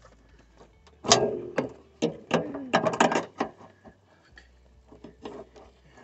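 Metal clicking and knocking as the end fitting of a hydraulic roof lock cylinder is worked by hand against its bracket while the bolts are lined up. A cluster of sharp clicks comes between about one and three and a half seconds in, the first the loudest, then a few fainter ticks.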